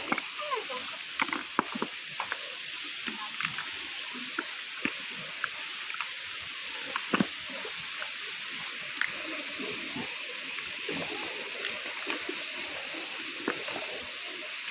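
Steady rush of flowing water, with scattered small clicks and knocks.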